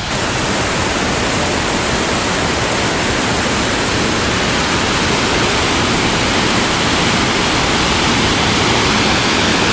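Small waterfall on a rocky stream, its water rushing in a steady, unbroken wash of noise.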